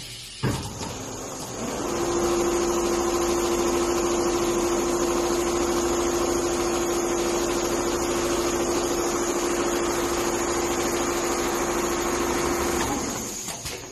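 Four-head computerized leather sewing machine running: a steady motor hum with a constant tone and a high whine, coming up about two seconds in and fading out near the end.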